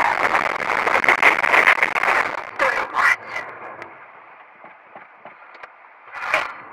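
Car rolling over a rough gravel shoulder strewn with debris, a dense crunching and rattling that dies down after about four seconds, with one short louder burst about six seconds in.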